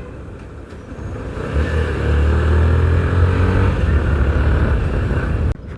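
Motorcycle engine running while riding, with a heavy low wind rumble on the microphone that swells about a second and a half in and drops away sharply near the end.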